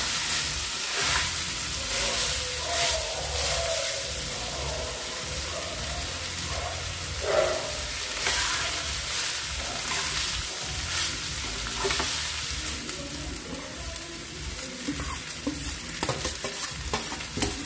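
Metal spatula scraping and stirring cooked rice with chicken in a nonstick pan on the heat, with repeated scrapes over a light sizzle. Near the end more rice is tipped and scraped in from a bowl, and the strokes turn choppier.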